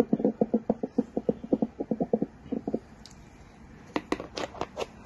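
Korrida KM-860A fetal Doppler's loudspeaker playing the heartbeat signal from its probe as a fast, even pulsing. The pulsing stops a little under three seconds in, and a few sharp clicks follow near the end.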